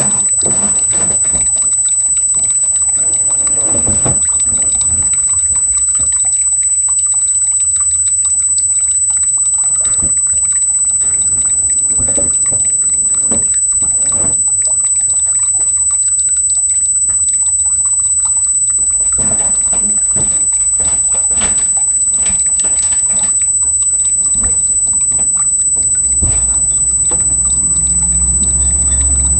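Water trickling and splashing steadily in a small stream, close to the microphone. A low rumble comes in near the end.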